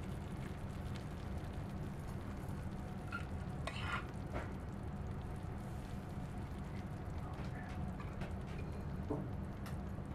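Chocolate sauce sizzling as it hits a hot pan around a brownie, a steady hiss with scattered small crackles and one sharper click about four seconds in.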